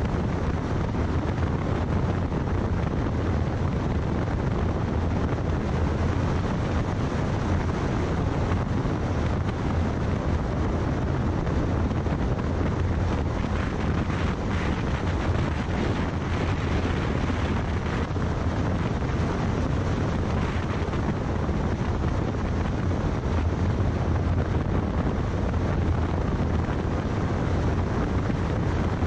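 Steady rush of wind and road noise from a moving car, heavy at the low end, with wind buffeting the microphone.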